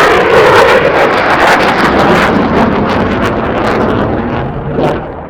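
Aircraft flying past: a loud rushing noise with crackling that fades out near the end.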